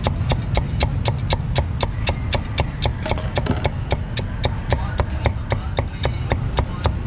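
Heavy meat cleaver chopping crispy-skinned roast pork on a thick round wooden chopping block, in fast, even strokes about four or five a second.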